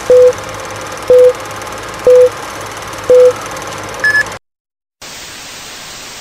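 Film-leader countdown sound effect: four short beeps about a second apart, each with a click, over a steady hiss and low hum, then a shorter higher beep at about four seconds. A brief cut to silence follows, then the steady hiss of TV static.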